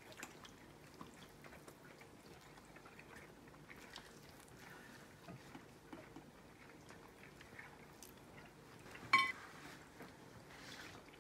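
Quiet dinner-table sounds of people eating: faint chewing and small clicks of chopsticks and dishes, with one short, louder sound about nine seconds in.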